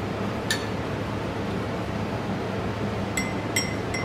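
A metal spoon clinking against a glass beaker while stirring nectar solution until the sweetener dissolves: one short ringing clink about half a second in, then three more near the end. A steady low hum runs underneath.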